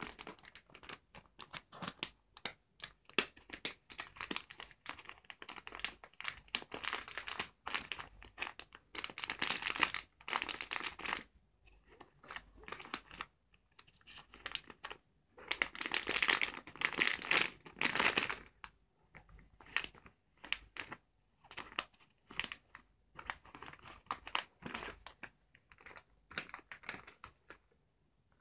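Underwear packaging being handled and unwrapped: irregular crinkling and rustling, with two louder stretches of crinkling and a short pause between them.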